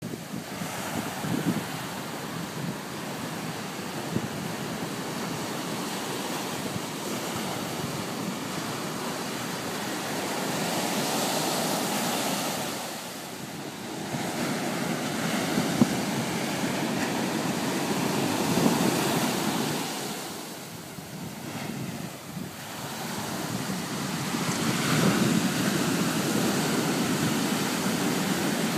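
Ocean surf breaking over rocks and washing up a sandy beach, a steady wash that swells louder as each wave comes in and eases off in between, with two quieter lulls.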